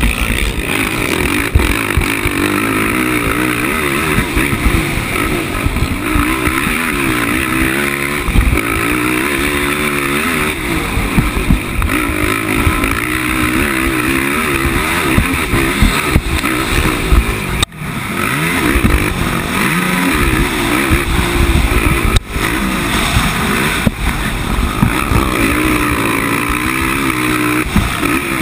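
A 450-class race quad's single-cylinder four-stroke engine running hard around a motocross track, revving up and down continually through corners and straights. The engine note dips sharply for an instant twice in the second half.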